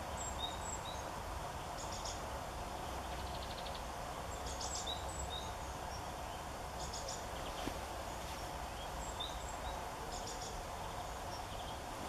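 Small songbirds calling: short high chirps and brief clusters of rapid high notes, repeating every couple of seconds, over a steady low rumble of background noise.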